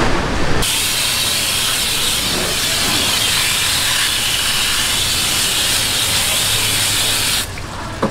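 Water spraying hard from a brass hose nozzle onto a yellowtail and the wooden chopping block, washing off the blood: a steady hiss that starts abruptly about half a second in and cuts off shortly before the end.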